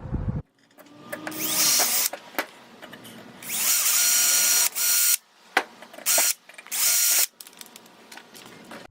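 Power drill running in about five short bursts, its whine rising as it spins up each time, drilling holes in a pot-metal C10 door handle so that wire can hold its broken tab in place.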